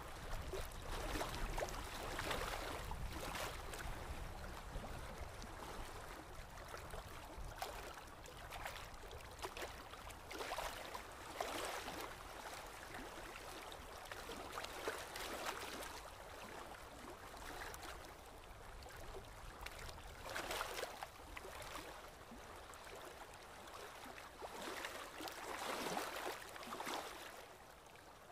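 Paintbrush strokes scraping and dabbing acrylic paint on a canvas board: soft, irregular scratches every second or two over a low hiss.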